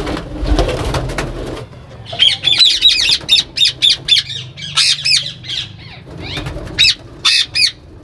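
Indian ringneck parakeet (cremino) squawking repeatedly in harsh, high-pitched calls, several a second, starting about two seconds in, after a brief flutter of wings and knocks against the nest box. The calls are alarm at the nest: the birds are frightened because they have chicks.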